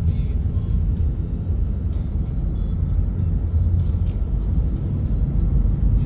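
Steady low rumble of road and engine noise inside a slowly moving car, with scattered faint clicks and rattles.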